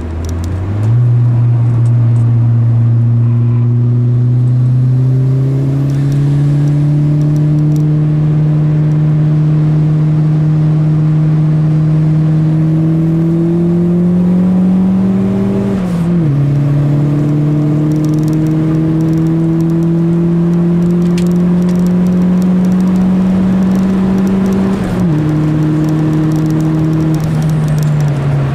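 Turbocharged VW Golf Mk2's four-cylinder engine heard from inside the cabin while accelerating on track: the pitch picks up about a second in and climbs slowly for a long pull, drops sharply with an upshift about halfway, climbs again, and drops with a second upshift near the end before falling away as the throttle is lifted.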